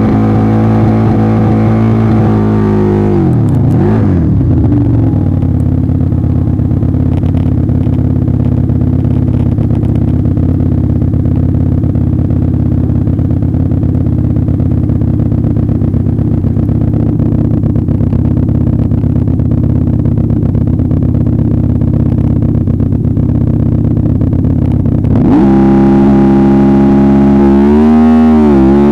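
Drag-racing motorcycle engine revving up and down in blips, then holding a steady speed for about twenty seconds while staged before launch. About 25 seconds in it gets suddenly louder, and near the end the revs rise and fall again.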